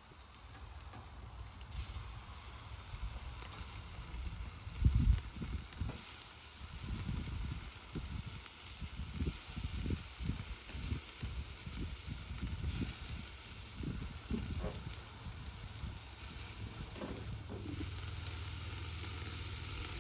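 Hamburger patties sizzling on the grate of a charcoal-fired ceramic kamado grill: a steady hiss that starts about two seconds in and grows louder near the end, with low thumps throughout.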